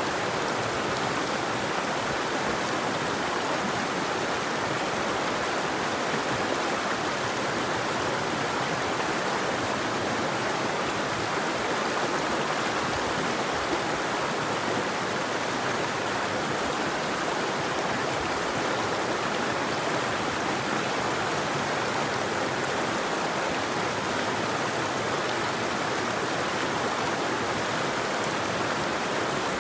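River water flowing in a steady, even rush with no birdsong or other events.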